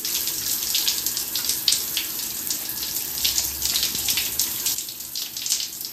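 Shower spray running and splashing onto an arm and the tiled wall while a hand rubs the body scrub off under the water. The hiss eases slightly near the end.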